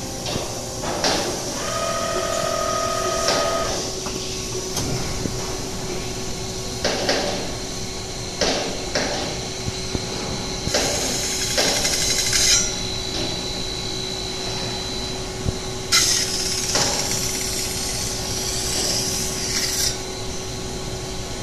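Catalytic converter shell spin-forming machine running: a steady machine hum with scattered sharp knocks and clacks, and two stretches of high hissing, about eleven and sixteen seconds in, while the spinning process runs.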